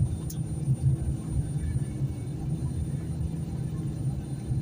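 Golf cart being driven along, giving a steady low hum and rumble.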